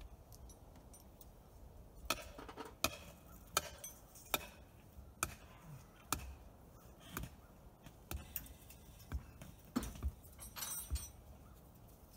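Repeated sharp knocks and clinks of metal striking metal, about a dozen spaced roughly a second apart, some with a short ringing tail.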